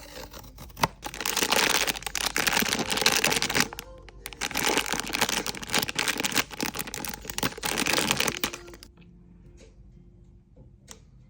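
Plastic wrapper crinkling and tearing as a blind box packet is opened: loud, continuous crackling for about eight seconds with a short dip midway, preceded by a single sharp click, then falling away to faint background music.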